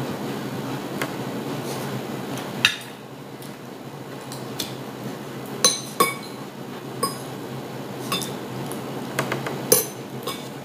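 Metal spoon and fork clinking and scraping against a ceramic plate of fried rice: irregular sharp clinks, about a dozen. A steady low hum in the background cuts off about two and a half seconds in.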